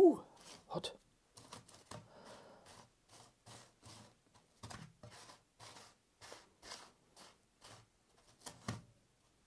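A fried donut being rolled and pressed in cinnamon sugar in a metal baking tray, making a run of short, soft, scratchy scrapes, one or two a second. A brief pitched sound right at the start is the loudest thing.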